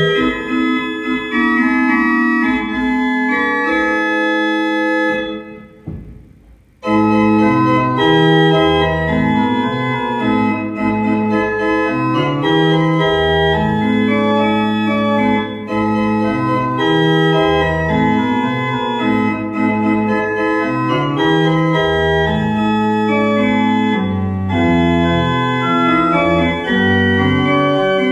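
Organ music: sustained chords held over a slowly stepping bass line. The playing fades and nearly breaks off about five seconds in, then comes back in at full strength about seven seconds in.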